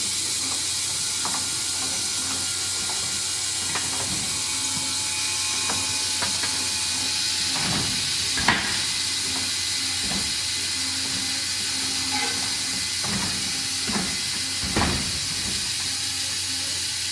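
Industrial sawmill machinery running with a steady hiss and hum, with a few short knocks, the loudest about halfway through.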